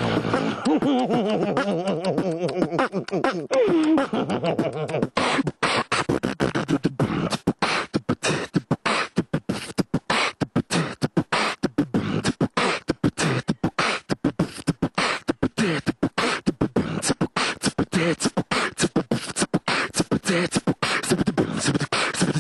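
Beatboxing into a handheld microphone: wavering, sliding vocal tones for the first four seconds or so, then a fast run of sharp percussive beats.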